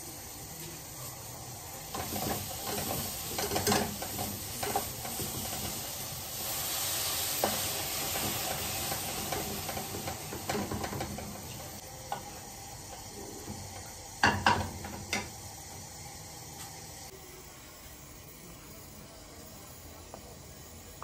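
Curry gravy simmering and sizzling in a kadai as it is stirred with a spatula, the spatula knocking against the pan now and then. A hissing sizzle swells for a few seconds in the middle, and a quick cluster of sharp knocks comes about fourteen seconds in.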